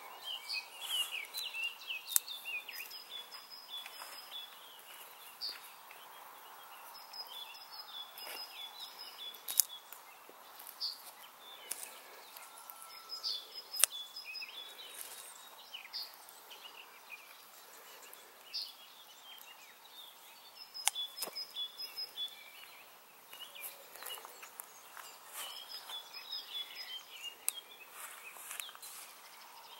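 Small woodland birds chirping and singing throughout, with a few sharp clicks from hands bending and snapping a young wild hop shoot.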